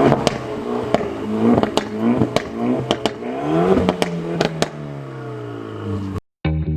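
Track cars accelerating hard. Engine revs climb and drop with each gear change, with sharp exhaust pops and crackles. Near the end an engine note falls away slowly, then the sound cuts off abruptly and music begins.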